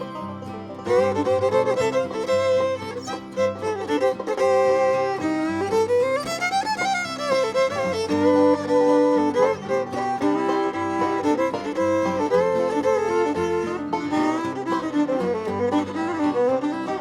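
Live bluegrass band playing an instrumental break, a fiddle carrying the melody with sliding notes over string-band backing.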